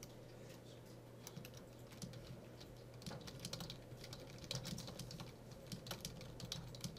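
Faint computer keyboard typing: runs of key clicks that pick up about three seconds in, over a steady low hum.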